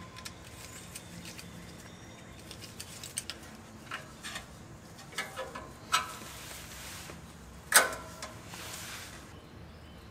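Stainless steel worm-gear hose clamp being tightened around an exhaust pipe and heat shield with a flathead screwdriver: scattered small metallic clicks and taps, with a sharper clink about six seconds in and the loudest one nearly eight seconds in.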